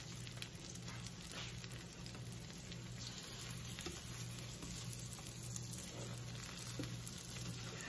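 Egg omelette sizzling gently in a nonstick frying pan, a soft, steady crackle over a low continuous hum.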